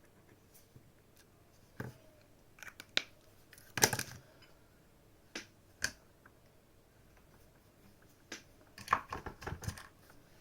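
Scattered small clicks and short scratchy taps of hand tools being handled at a soldering bench. The loudest cluster comes about four seconds in, and a quick run of clicks comes near the end.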